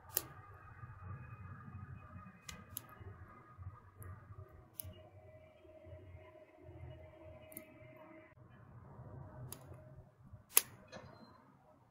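Small wood fire of dry twigs and branches crackling as it catches, with sharp pops every second or two over a low steady rumble. The loudest pop comes near the end.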